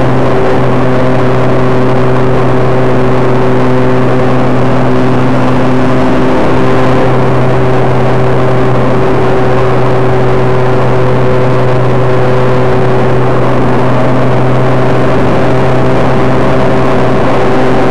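R/C T-28 Trojan model airplane's motor running loudly and steadily in flight, heard through the plane's onboard wing camera with air rushing past. Its pitch shifts slightly about six seconds in and again near fourteen seconds.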